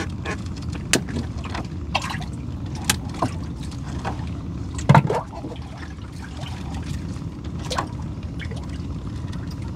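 Water trickling and splashing as a gill net is hauled hand over hand into a small boat, with scattered knocks and ticks against the boat over a low steady rumble. One louder thump comes about halfway through.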